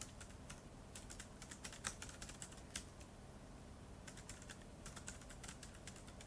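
Typing on a keyboard: light, irregular runs of key clicks, with a thinner stretch about halfway through before the tapping picks up again.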